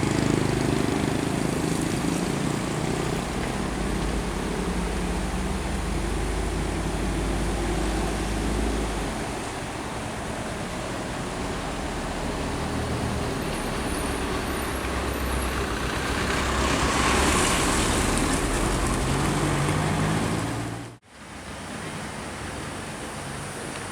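Heavy vehicle's engine running loud and low as it passes, its note rising about seventeen seconds in. The sound drops out abruptly near the end and comes back as fainter traffic noise.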